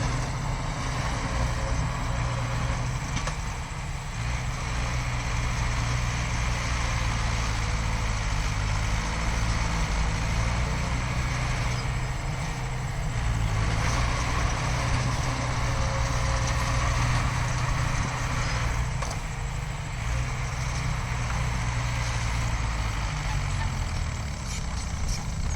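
Diesel engines of heavy earthmoving machinery running steadily, a deep continuous hum with little change in pitch.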